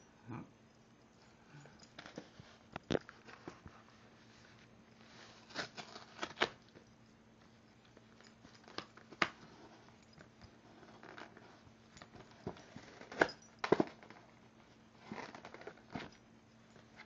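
A small Cairn terrier–Shih Tzu mix dog biting and tearing at a thin cardboard box: about a dozen sharp crackles and rips at uneven intervals, with quieter stretches between.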